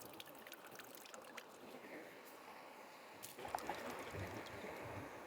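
Camp stove burner hissing steadily with a flame too faint to see, with light clicks in the first second or so. A louder, lower rumble joins about three and a half seconds in.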